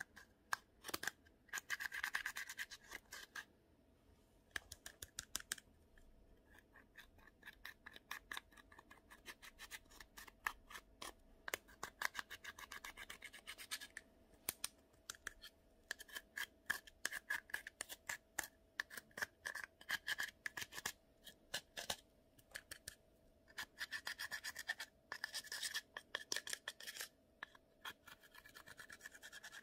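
Pressed powder eyeshadow being scraped and crumbled out of the palette pans with a small pointed tool: dense runs of fast scratchy clicks in stretches of a few seconds, with short pauses between.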